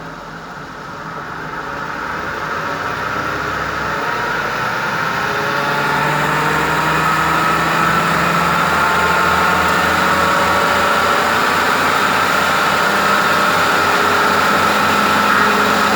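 Toyota Funcargo's jacked-up left front wheel spinning in drive, its wheel bearing humming steadily over the running engine, rising in pitch and growing louder over the first few seconds as the wheel speeds up. The hum marks this bearing as badly worn.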